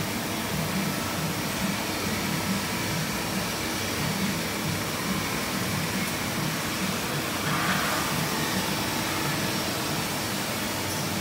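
Steady whirring hum of a powered-up sliding-head CNC lathe and its bar feeder, with a low pulsing drone underneath and a brief higher hiss about seven seconds in.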